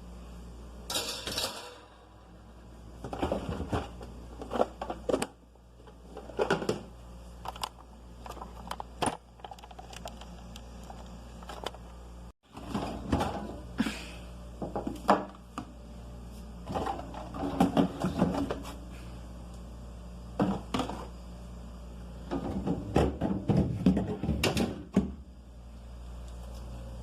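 Food containers, jars and dishes from a refrigerator being handled and set down, with irregular clinks, knocks and clatter in short clusters.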